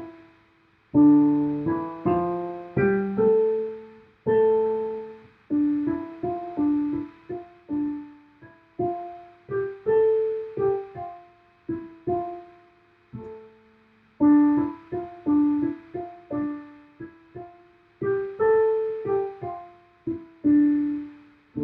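Solo piano playing a simple piece: short phrases of struck notes, each fading quickly, separated by brief pauses.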